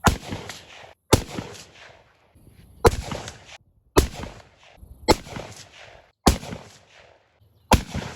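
.22-calibre gunshots, seven in quick succession about a second apart, each sharp crack trailing off in a short echo. None sets off the Tannerite target.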